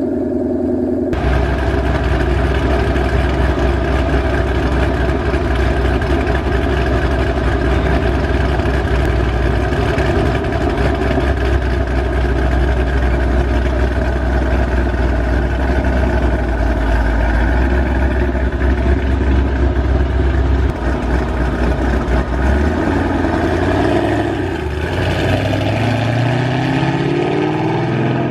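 Ford Mustang GT V8 with long-tube headers, off-road X-pipe and Corsa Extreme exhaust, running with a steady deep rumble, then revving up with a rising pitch over the last few seconds.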